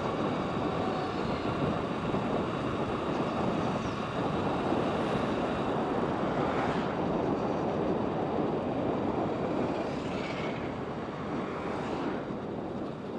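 Steady rush of wind and road noise from a motorcycle cruising on a highway, heard from a camera on the moving bike. Two brief swells, about halfway through and near the end, as oncoming vehicles pass.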